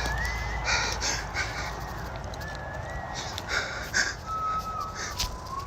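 A thin whistle in the woods: a few held notes that glide and step between pitches, sitting lower near the end. Irregular bursts of rustling noise come between and under the notes.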